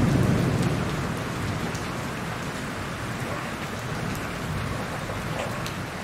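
Heavy rain falling steadily in an even hiss, with scattered sharper drop ticks. A low rumble of thunder dies away over about the first second.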